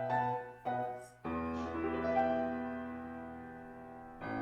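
Background solo piano music: slow chords struck and left to ring, a new chord about a second in.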